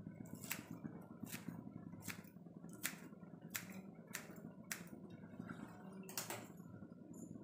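Chopped coriander leaves scattered by hand over rice in a biryani pot: faint, short clicks about once a second over a low steady hum.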